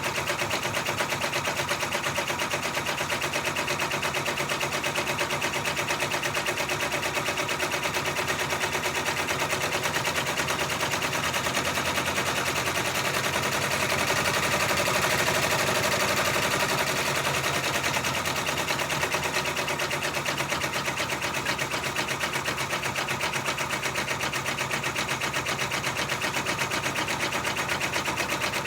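Six-needle embroidery machine stitching out a monogram: a steady, rapid mechanical chatter of the needle bar, slightly louder about halfway through.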